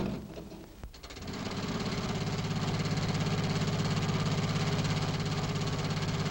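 Old car engine, the jitney's, starting up about a second in and running with a fast, even chugging rattle. It follows a sharp knock at the very start.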